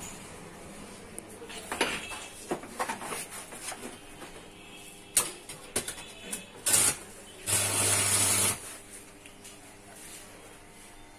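Scattered metallic clinks and knocks, then a hiss with a low hum that lasts about a second and cuts off.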